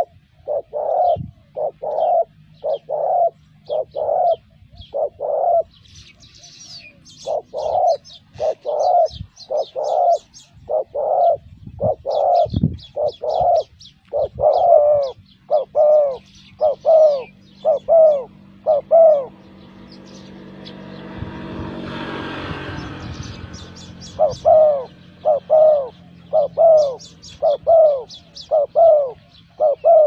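Spotted doves cooing: short coos, each rising and falling in pitch, repeated about twice a second in long runs. The coos break off for a few seconds past the middle while a rushing noise swells and fades, then resume. Quick, high chirps of small birds sound over them.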